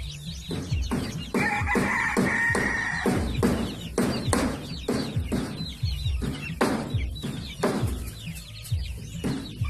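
A flock of heritage chickens clucking, many short sharp calls one after another, with one longer drawn-out call from about a second to three seconds in.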